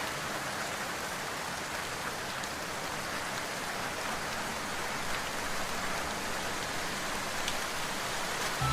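Steady rain falling: an even hiss of many drops with no other sound over it. Music comes back in right at the end.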